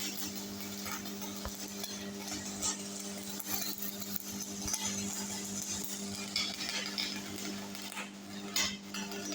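Stick-welding arc from a 3 mm 6013 electrode, crackling and sizzling irregularly over a steady electrical hum from the welding machine.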